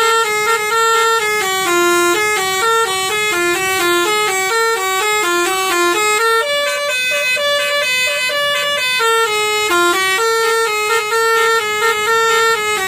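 Indonesian 'telolet' bus horn, a multi-tone horn playing a fast melody of held notes that step up and down without a break.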